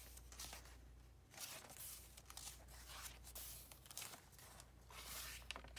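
Pages of a handmade journal of coffee- and tea-stained vintage papers turned by hand, soft paper rustling in about three short swishes.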